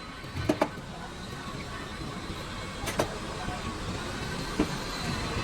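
A few sharp knocks over steady workshop background noise: two in quick succession about half a second in, one around three seconds in, and one more about a second later.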